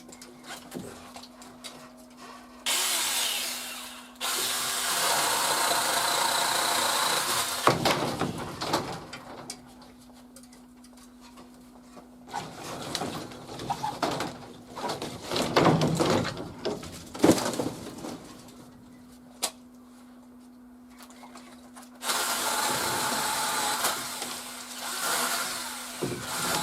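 Seesii PS600 electric saw, run as a small chainsaw, running in three bursts while cutting branches into log lengths: a short one, a longer one right after it, and another near the end. Knocks and rustles of wood being handled come between the cuts.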